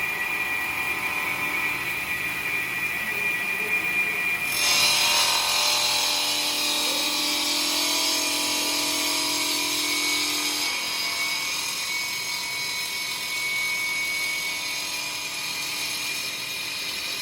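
Stone-cutting saw running with a steady high whine. About four and a half seconds in, the blade bites into the stone and a loud, hissing grind starts, easing off somewhat in the second half.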